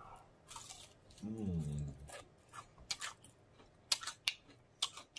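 Close-miked mouth sounds of chewing shrimp: a short low hummed "mm" about a second in, then a run of sharp wet lip smacks and mouth clicks.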